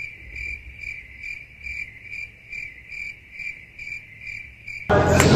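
Cricket chirping in a steady high trill that pulses about three times a second. All other sound is cut out around it, the edited-in 'crickets' sound effect that marks an awkward silence. It stops abruptly near the end as talk returns.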